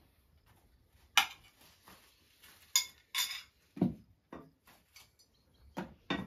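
Metal utensils and plates clinking and knocking as food is served and eaten: about seven separate clinks and dull knocks, the sharpest about a second in.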